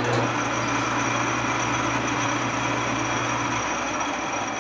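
Clausing metal lathe switched on, its motor and headstock gears running steadily as the chuck spins up. A steady hum drops out about three and a half seconds in, while the spindle and gears keep running a little quieter.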